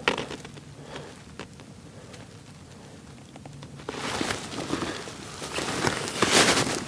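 A few faint ticks, then a crackling rustling noise that starts about four seconds in and grows loudest near the end.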